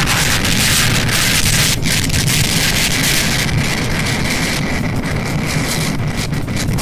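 Wind rushing over the microphone and wet-road spray hiss from a Bajaj Pulsar NS160 riding in rain, with the bike's engine running steadily underneath. The hiss eases about four and a half seconds in.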